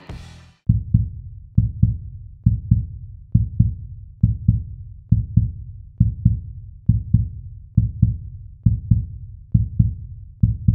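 Heartbeat sound effect: pairs of low thumps, lub-dub, repeating a little faster than once a second, after the tail of rock music cuts off near the start.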